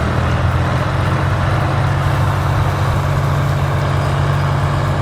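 Large vehicle engine running steadily at an even, low pitch, with no revving.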